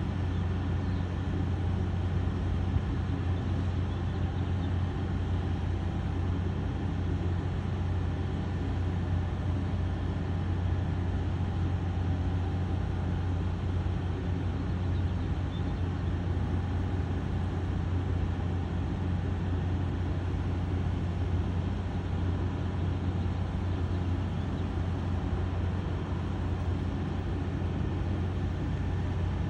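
Helicopter running steadily, a constant low drone with no change in level.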